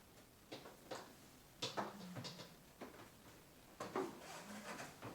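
Plastic parts of a Hoover Insight upright vacuum being handled and fitted together: a series of light knocks, clicks and rubbing as the pieces are lined up, with two louder knocks near the middle and near the end.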